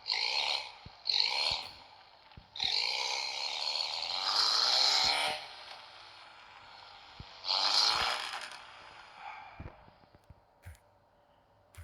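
Harsh, raspy animal calls: a few short ones at the start, then a long call lasting about three seconds, and a shorter one about a second long past the middle.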